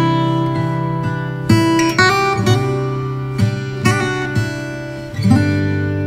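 Background music: acoustic guitar strummed and plucked in sustained chords, with a new chord or note struck every half second to a second.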